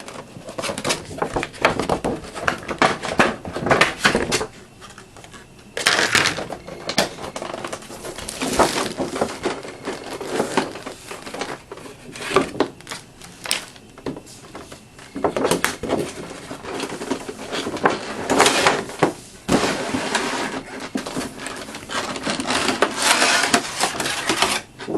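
A collector's gift-set box and its packaging being handled and opened by hand: irregular rustling and scraping with sharp knocks and clicks. There are short pauses about four seconds in and again near the middle.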